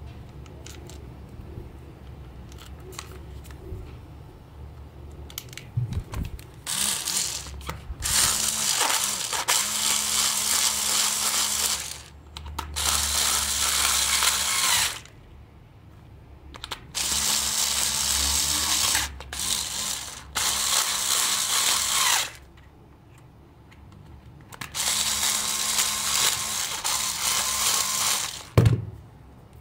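Cordless electric screwdriver running in several bursts of two to four seconds, each with a steady motor whine, as it turns the screws in a plastic toy car chassis. Between the bursts there are handling clicks, and a sharp knock comes near the end.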